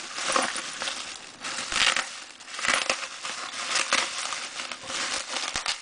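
Package wrapping crinkling and rustling in irregular bursts as it is handled, with a few sharp clicks.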